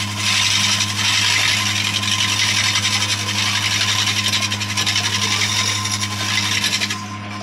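Electric woodworking machine running with a steady motor hum while its tool cuts into wood with a loud rough hiss. The cutting stops suddenly near the end and the motor keeps humming.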